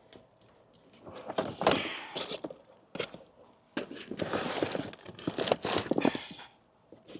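Camping gear being handled and packed: irregular knocks and thuds mixed with rustling, in two stretches, the first starting about a second in and the second about four seconds in.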